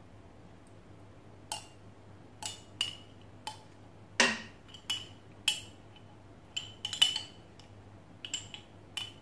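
A plastic spoon knocking and scraping against a glass jar while thick yogurt is spooned out of it into a glass: about a dozen short, sharp clinks at uneven intervals, the loudest about four and seven seconds in.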